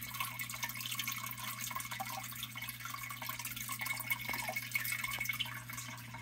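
Small water drips and trickles, irregular and continuous, over a steady low hum.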